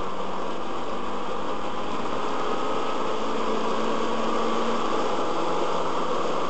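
Car engine and road noise at speed, heard from inside the cabin through a dashcam microphone: a steady drone with a faint engine note that shifts slightly about five seconds in.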